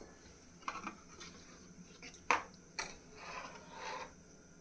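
A few light clinks and knocks of a steel ladle and stainless-steel pan on a gas stove, the sharpest about two and a half seconds in, with a soft scraping rustle shortly before the end.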